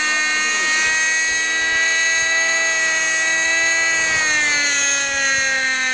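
Nitro glow engine of a G-Smart 18-size RC helicopter running in flight, a steady high whine with its rotor, that drops slightly in pitch about four seconds in.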